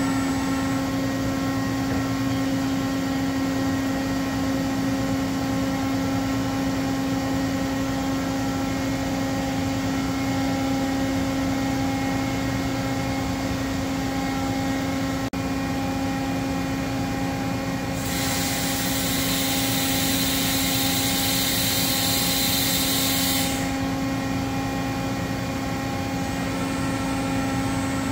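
Doosan DCM 2740 CNC bridge mill running, a steady machine hum with a clear low tone and fainter higher tones as its head and table move. About two-thirds of the way in, a loud hiss starts, lasts about five seconds and cuts off sharply.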